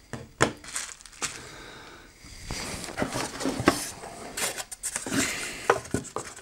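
Unboxing handling noise: a Blu-ray player with foam packing being lifted out of its cardboard box, with irregular rustling, scraping and a few knocks of cardboard, foam and plastic.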